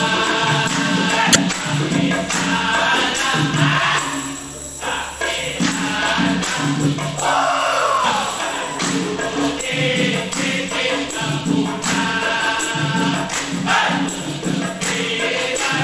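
A vocal group singing a Malay religious song in close harmony over hand percussion that keeps a steady beat. About halfway through, a voice slides down in pitch.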